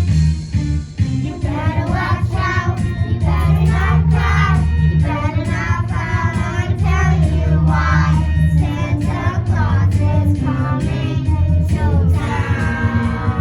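Children singing a song together over instrumental accompaniment with a strong bass line.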